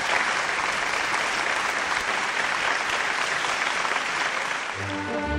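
Audience applauding steadily at the close of a lecture. Near the end the applause gives way to music with sustained, layered tones.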